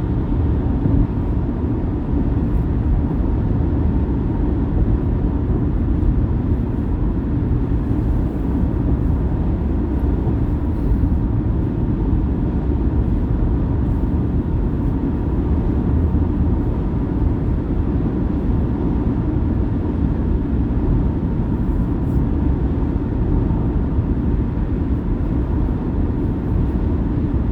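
Steady road and tyre noise inside a car cruising at highway speed, heaviest in the low end, with a faint steady whine.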